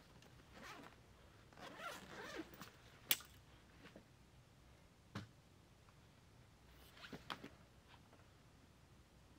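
Quiet handling of a backpack: a zipper pulled and fabric rustling as the bag is gone through, with one sharp click about three seconds in, a smaller knock a couple of seconds later, and a few more soft clicks and rustles near the end.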